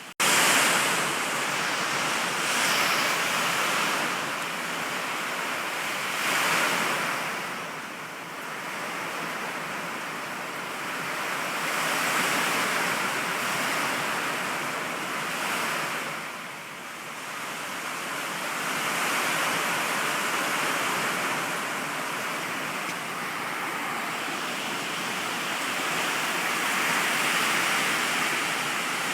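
Hurricane rain and gusting wind: a steady rushing that swells and eases every few seconds.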